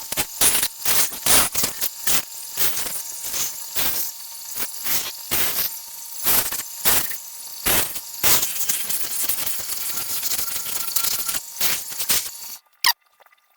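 Rapid, irregular scrubbing strokes from cleaning metal ratchet parts by hand, stopping abruptly near the end.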